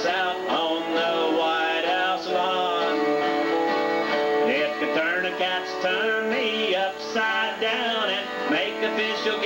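Live country-style band music: acoustic guitars strummed, with an electric guitar, played continuously.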